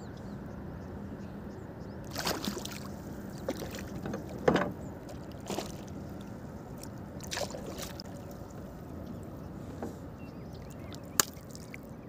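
Water moving against a small wooden boat, with several short splashes and knocks as a fish is worked on a hooked stick line and hauled up. The loudest comes about four and a half seconds in, and there is a sharp click near the end.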